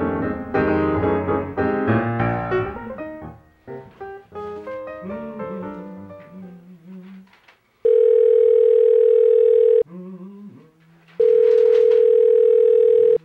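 Piano music thins out and fades over the first seven seconds. Then an electronic telephone ringer sounds a single steady tone in rings about two seconds long, twice: an incoming call.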